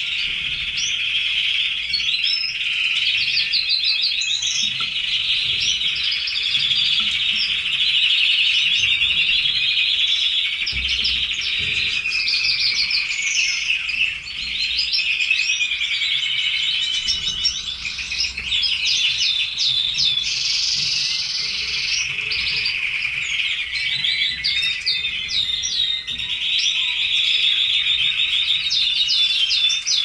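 Red-factor canaries singing: a continuous song of fast rolling trills and quick rising whistled notes, without a pause.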